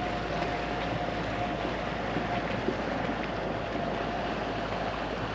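Steady wind noise on the microphone, with a faint steady high hum underneath and a few light clicks.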